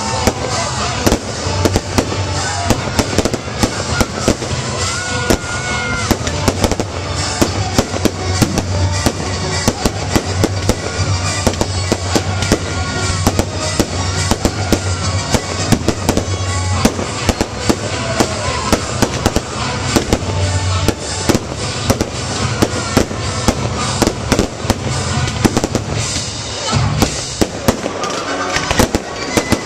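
Fireworks display: a dense, continuous run of crackles and bangs from bursting shells and fountains, many per second.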